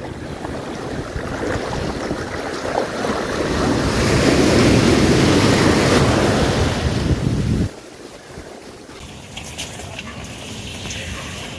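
Sea waves breaking and surging, with wind buffeting the microphone; the rush swells to its loudest about halfway through. It cuts off suddenly about two-thirds of the way in, leaving a quieter background hiss.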